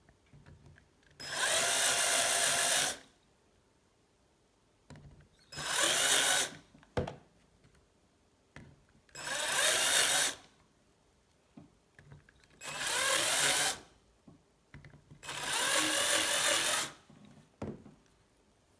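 Power drill running in five short bursts of one to two seconds each, a chamfering bit putting a light chamfer on the freshly drilled holes of a quick-release skewer.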